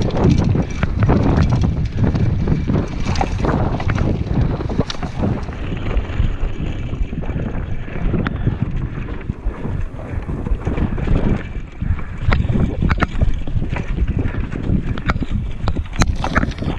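Wind buffeting the microphone while riding a mountain bike at speed, with the bike rattling and its tyres rolling over dirt, wooden boardwalk slats and gravel. Frequent sharp clicks and knocks from the bike run through the steady wind noise.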